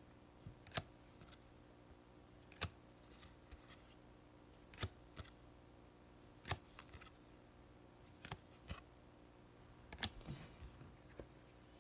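Faint crisp clicks of Pokémon trading cards being handled and laid down one at a time on a pile, about every two seconds, with light rustling ticks between.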